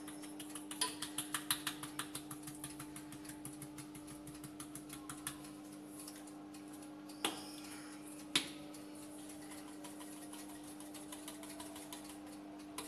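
Hand pepper grinder being twisted, a fast run of dry grinding clicks for about five seconds. Then two sharp knocks, with a steady low hum underneath.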